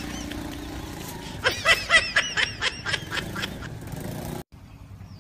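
Laughter in a quick run of about seven high 'ha' bursts, roughly four a second, heard over a low steady street background.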